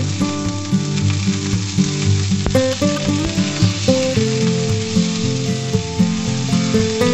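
Beef eye fillet steaks sizzling steadily in hot oil in a frying pan while they are turned over with tongs. Background music with held notes plays underneath.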